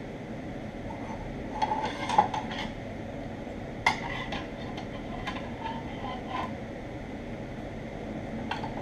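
Steel parts being handled, clinking with short metallic rings: a cluster of taps about a second and a half in, a sharper one near four seconds followed by several lighter ones, and one more near the end, over a steady background hum.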